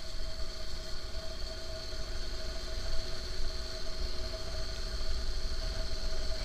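Motorcycle engine running steadily while riding, with wind rumbling on the microphone.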